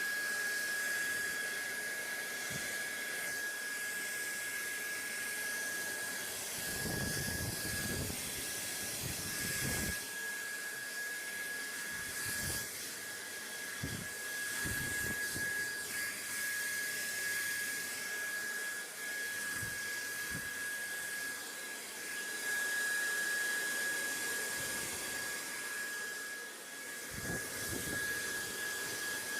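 Steady white-noise hiss with a thin, steady high whine running through it. A few brief low rumbles come and go, at about a quarter of the way in, around the middle, and near the end.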